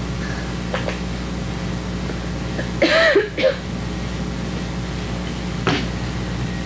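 Steady low hum of room noise, with one short vocal sound, like a murmur, about three seconds in, and a brief rustle of thin Bible pages being turned near the end.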